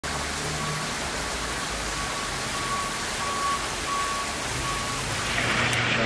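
Steady rushing noise of falling water, with a faint high tone that comes and goes.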